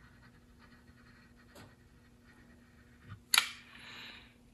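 Quiet workbench handling, then one sharp click about three and a half seconds in, followed by a short hiss.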